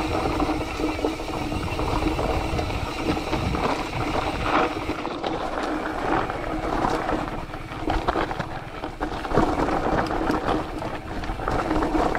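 Mountain bike riding over a rough dirt and rock trail, the bike knocking and rattling over bumps, with wind on the microphone and a steady buzz underneath.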